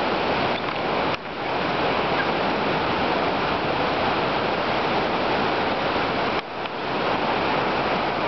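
Ocean surf washing on a beach: a steady rushing noise that dips briefly twice.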